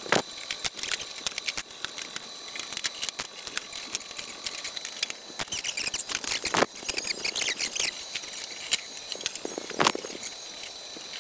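Workshop hand-tool noise: a busy clatter of clicks and taps, with three sharper knocks and some high squeaking chirps in the middle.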